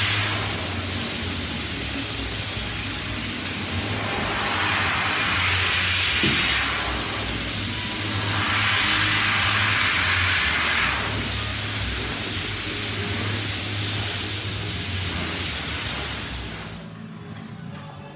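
Water, likely a baking-soda neutralizing solution, poured from a bucket and splashing over a bare steel car body panel. It makes a loud rushing hiss that swells several times over a steady low hum and cuts off suddenly near the end.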